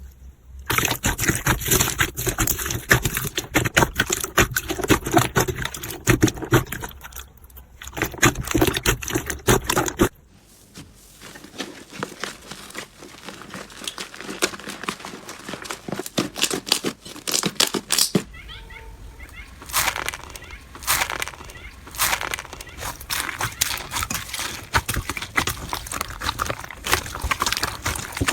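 Slime being squeezed, poked and stretched by hand, making fast crackling, popping clicks and sticky squelches. The sound changes abruptly twice, quieter for a stretch in the middle.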